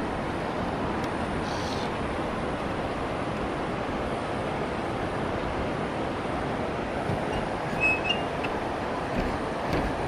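Steady, even rushing noise with no pitch to it, with a couple of light knocks and a short high chirp about eight seconds in.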